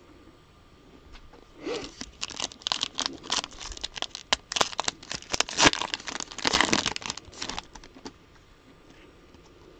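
A 2020 Panini Prizm trading-card pack being torn open, its wrapper crinkling and tearing in a dense run of crackles from about two seconds in until about eight seconds in.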